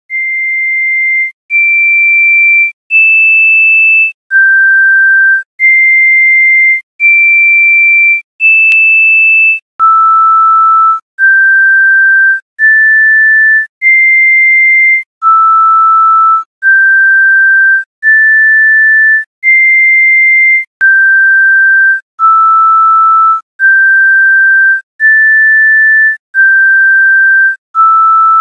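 A slow, simple tune played in pure electronic sine-wave tones. The notes are high and beep-like, one about every second and a half, each held steady with a short break between, stepping up and down in small steps.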